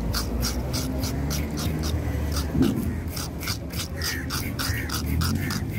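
A homemade fish scaler, a wooden stick with a bottle cap on its end, scraped repeatedly along a flathead fish's body, stripping off the scales in quick, regular strokes, about four a second.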